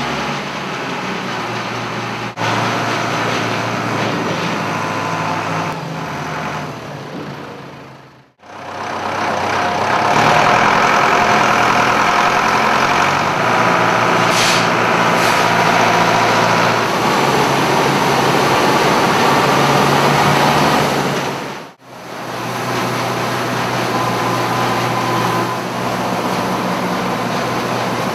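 A tractor-driven straw blower running steadily, its engine and fan throwing bedding straw across a barn floor. The sound drops out abruptly twice.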